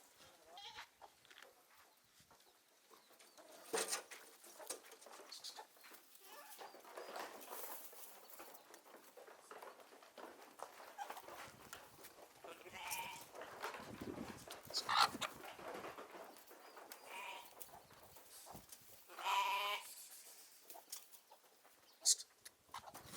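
Goats bleating now and then, with one clearer wavering bleat about three quarters of the way through, over a few sharp clicks.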